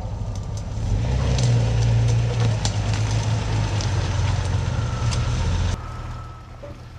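Jeep Cherokee engine running at low speed as it crawls along a rough dirt trail, louder about a second in, with scattered sharp cracks from the tyres rolling over the track. It drops quieter near the end.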